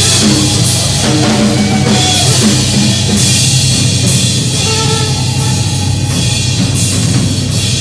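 Loud live noise music: a drum kit played hard with repeated cymbal crashes over a dense, steady wall of droning electronic noise with wavering tones.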